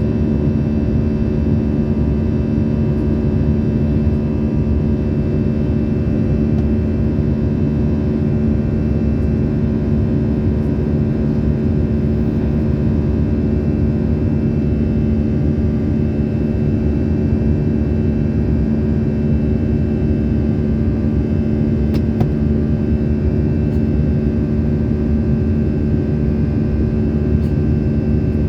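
Steady cabin noise of an Airbus A320-family airliner in flight: a constant low drone with a strong, unchanging hum on top, which the passenger heard as an abnormal noise in the cabin.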